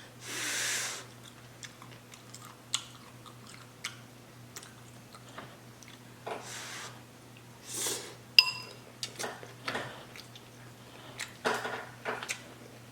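Close-miked chewing and crunching of cucumber, with wet mouth clicks and a few louder breaths through the nose. A single short ringing clink, like a utensil against a dish, comes a little past the middle.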